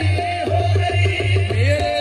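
Live qawwali played over a loudspeaker system: a melody of held and gliding notes from harmonium and voice over a steady tabla beat.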